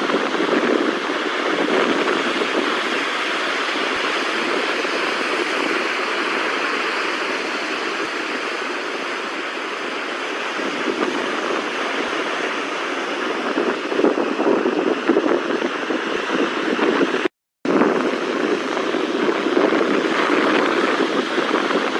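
Floodwater rushing, a steady, even noise of fast-flowing water. It cuts out for a split second a little over three quarters of the way through.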